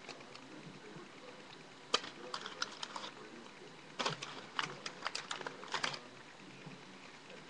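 Two quick runs of sharp crackling clicks, the first about two seconds in and the second about four seconds in, over a low background hiss.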